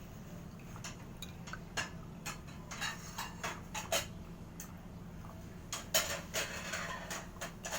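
Irregular clinks and clatter of kitchen utensils being handled, with a busier run of clatter near the end.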